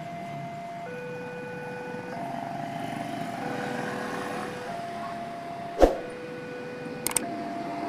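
Railway level-crossing warning alarm sounding, a two-tone signal that switches between a lower and a higher note about every second, over passing motorbike and road traffic. A single sharp knock comes near the end.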